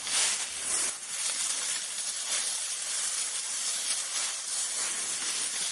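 Dry leaves rustling in a continuous crackly hiss, swelling in the first second and then going on more evenly.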